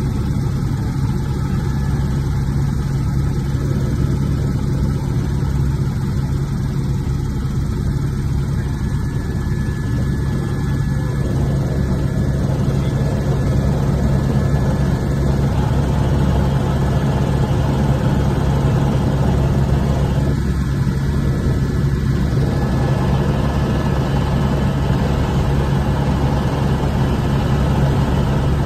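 Cockpit noise of an Airbus AS350 Écureuil helicopter in flight: the steady drone of its single turboshaft engine, main rotor and transmission, with a strong low hum running evenly throughout.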